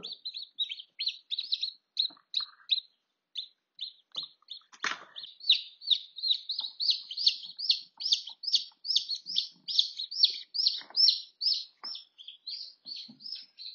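Newly hatched domestic chicken chicks peeping: a steady run of short, high peeps, several a second, growing denser and louder through the middle. An occasional faint tap sounds among them.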